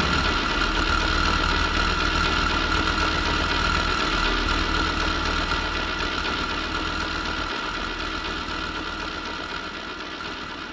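Experimental noise music: a steady electronic drone of low hum and hiss with a held high tone, slowly fading out.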